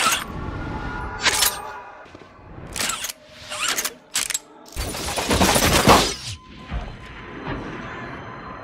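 Film soundtrack of a pistol shootout: a series of sharp gunshot bangs and metallic clicks, then a longer, louder noisy burst about five seconds in, over music.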